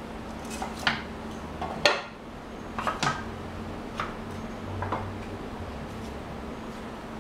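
A wooden box of Arkansas oil stones being opened on a workbench: a handful of sharp wooden knocks and clicks as the lid pieces are lifted off and set down, the loudest about two seconds in.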